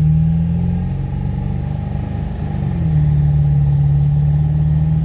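Ford 7.3 L Powerstroke V8 turbodiesel running under throttle with a high turbo whistle over the engine note; the engine speed climbs, holds, then drops back a little past the middle while the whistle keeps going. The turbo is louder now that the exhaust leak at the up pipes is fixed and it is no longer choked.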